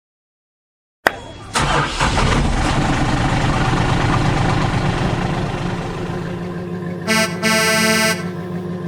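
A motor vehicle running, starting suddenly about a second in. Near the end a horn sounds twice, a short toot and then a longer honk.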